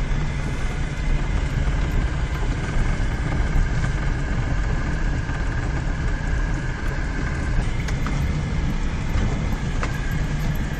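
Inside a car's cabin on a rough dirt track: steady engine and tyre rumble, with a faint steady whine through the middle.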